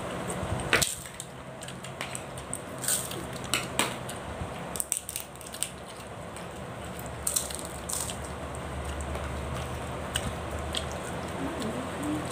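Close-miked eating sounds: wet chewing, lip smacks and sharp mouth clicks scattered irregularly as fish head curry is eaten by hand, over a steady low hum.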